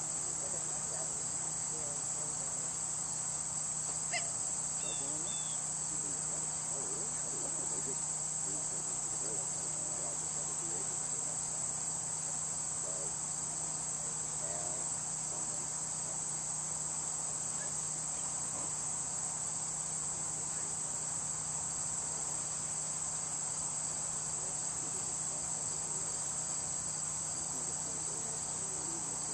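Steady, high-pitched chorus of late-summer insects, such as crickets, droning without a break, with a single faint click about four seconds in.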